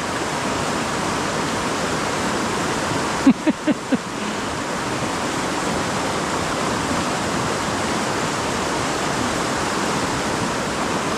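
Steady rush of a fast-flowing mountain stream. About three seconds in, four short knocks come in quick succession.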